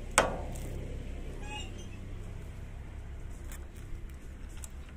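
Rusted hub nut giving under a homemade roller-chain wrench: a sharp metallic crack about a fifth of a second in as it breaks loose, then a short high squeak about a second and a half in.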